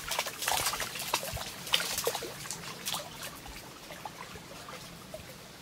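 Water splashing and trickling as a wire-mesh crayfish trap is thrown into a lake, with a run of short clicks and rustles in the first few seconds that then settles to quieter water sounds.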